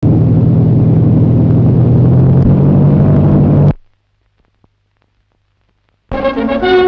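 Propeller aircraft engines droning in flight: a loud, steady drone that cuts off suddenly a little past halfway, followed by a couple of seconds of silence. Brass music starts near the end.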